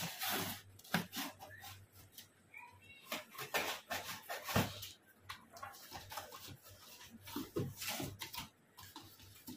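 Utility knife slitting the packing tape on a cardboard shipping box: irregular scratchy cutting and ripping strokes, with cardboard rustling as the flaps are pulled open near the end.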